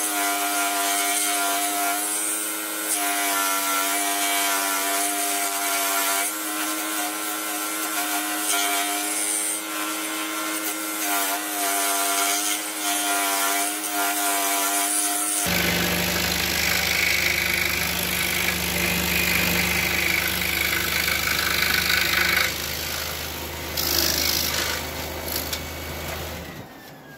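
Pegas 21-inch precision scroll saw running and cutting through wood, a steady buzzing with a pitched hum. About halfway through the sound abruptly turns deeper, and near the end the saw stops.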